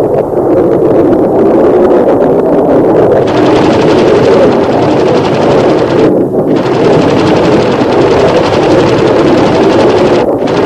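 Jet aircraft in flight: a loud, steady, rushing engine roar, with the hiss dropping away for a moment about six seconds in and again near the end.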